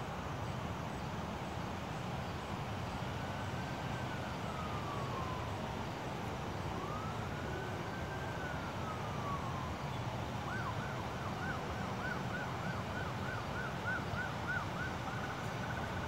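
Police siren sounding over steady background noise: slow wails that rise and fall, then about ten seconds in it switches to a fast yelp of about three cycles a second.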